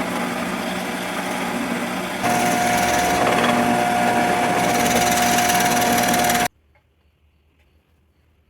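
Shopsmith woodworking machine running as a horizontal boring machine, a steady motor hum. About two seconds in it gets louder and a steady higher whine joins. It cuts off suddenly near the end.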